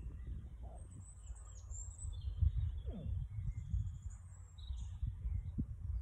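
Garden songbirds chirping and singing, short high calls and trills scattered through, over a steady low rumble.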